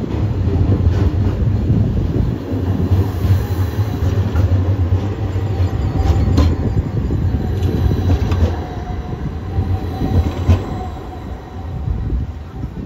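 Edinburgh tram running along street rails close by, with passing road traffic: a steady low rumble and hum, and a faint wheel squeal about halfway through.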